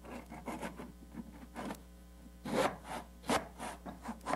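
Back saw cutting through painted wooden quarter-round trim in a miter box, in a run of uneven strokes, the loudest a little past the middle. The saw's teeth do the cutting on the forward stroke.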